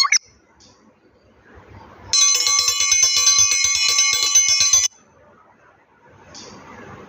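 A comedy sound-effect clip of a bell ringing with rapid repeated strokes for just under three seconds, starting about two seconds in and stopping abruptly.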